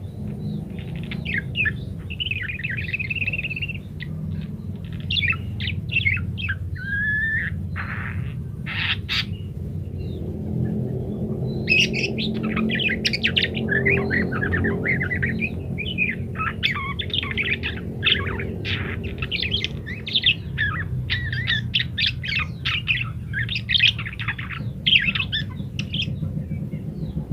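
Budgerigars chattering and warbling in fast runs of chirps, whistles and short squawks, over a steady low hum.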